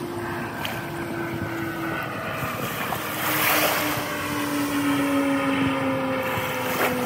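Outboard motor on a Frewza F18 hardtop boat running on the water, its engine note steady and slowly falling in pitch. Wind gusts on the microphone a few seconds in.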